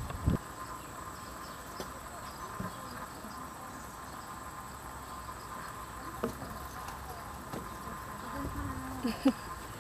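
Steady insect drone with a thin, even tone from the surrounding insects, a short knock just after the start and a faint voice near the end.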